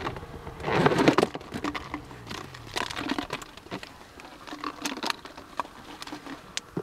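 Irregular rustling and crackling with scattered short clicks, loudest in a rough burst about a second in.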